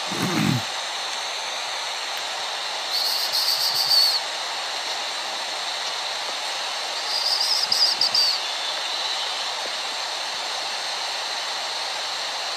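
Steady outdoor hiss, with two short, high, rapidly pulsing buzzes about three and seven seconds in, and a brief low falling sound right at the start.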